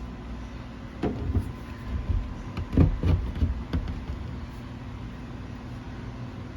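A steady low hum, with a run of knocks and rustling handling noises from about a second in that stops after about three seconds.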